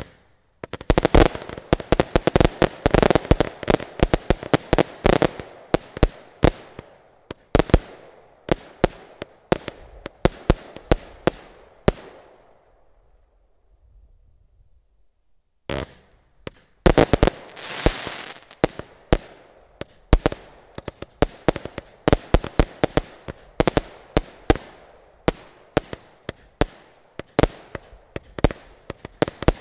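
A 240-shot, 20 mm compound firework cake firing rapid, irregular volleys of shots and bursting reports. The firing dies away and pauses for about three seconds around the middle, then resumes densely with one shot followed by a fast string of reports.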